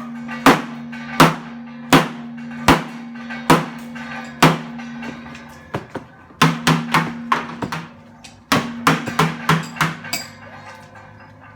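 Repeated hammer blows on an old steel water heater tank. Each strike is a sharp clang followed by a low ringing hum from the tank. The blows come steadily at first, pause briefly about halfway, then come in two quicker flurries.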